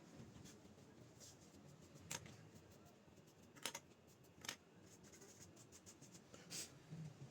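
Faint rubbing of a pencil eraser scrubbing the gold contacts of a laptop RAM module, with a few light clicks scattered through it.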